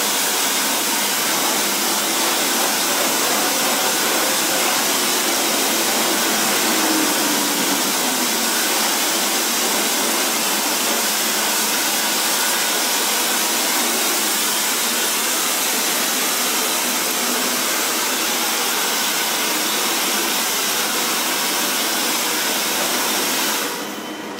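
Handheld electric hair dryer running steadily, its air blown onto the mesh of a silk-screen printing frame to dry it; it switches off about a second before the end.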